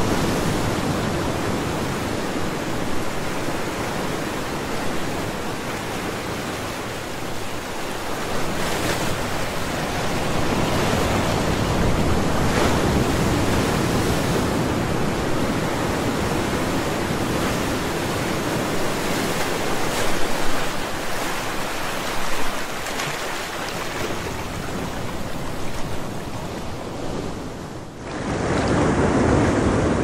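Ocean waves breaking in a continuous wash of surf that swells and ebbs, with a couple of louder crashes about two-thirds of the way in. Near the end the sound dips briefly and gives way to a duller, deeper surf.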